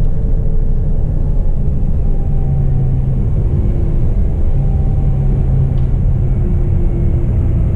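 Engine of a sightseeing cruise boat, a steady low rumble with a faint hum whose pitch drifts slightly.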